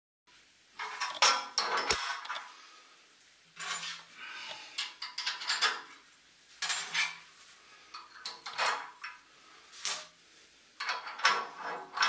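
Steel bolts, nuts and washers clinking against each other and against the steel frame of a hydraulic press as bolts are fitted by hand, in several separate bursts of clinks with pauses between.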